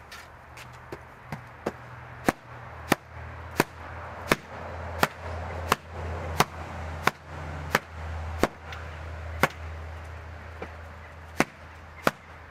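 A carpet beater whacking a large stuffed floor cushion lying on a wooden table: a steady run of sharp smacks, about one every two-thirds of a second, with a short pause near the end.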